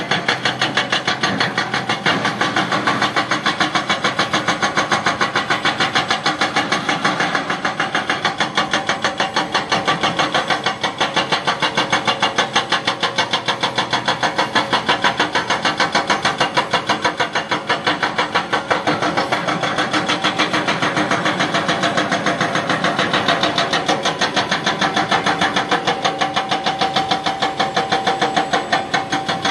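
Excavator-mounted hydraulic rock breaker hammering stone in a fast, steady pounding of about five or six blows a second, over the excavator's running engine.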